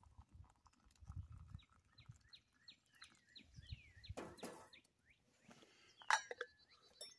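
Faint handling of a stainless camp coffee percolator and tumbler on a steel campfire grate: a knock at about four seconds as the pot is set down, then a brighter ringing metal clink at about six seconds as a lid goes onto the tumbler. A bird calls a quick run of short falling chirps in the middle.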